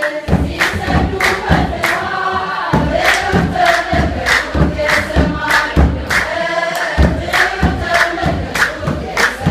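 Ethiopian Orthodox congregation singing a hymn together in chorus, with rhythmic handclapping at about three claps a second and low thumps keeping the beat.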